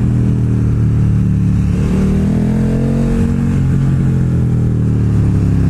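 KTM Super Duke R's V-twin engine running under way, its pitch rising about two seconds in and easing back off a second or so later.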